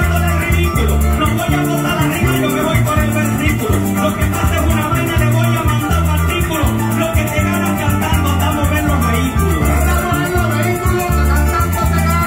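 Llanero joropo band playing a steady, driving accompaniment: a llanera harp and plucked strings over a bass line, with maracas shaking a fast, even rhythm throughout.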